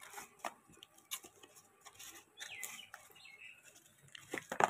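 Hands peeling packing tape and tearing open a taped parcel: faint scattered scratches, crinkles and clicks, with a short chirp-like squeak about two and a half seconds in and a louder burst of rustling near the end.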